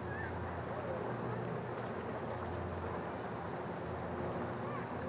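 Seaside ambience: a steady wash of sea and wind noise, with a constant low hum underneath.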